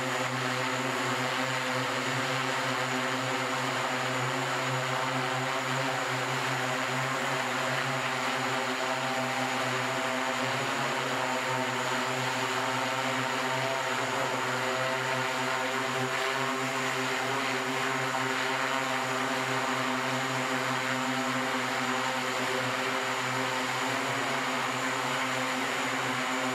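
SkyDrive SD-03 eVTOL hovering on its electric propellers: a steady multi-tone hum over a rush of air.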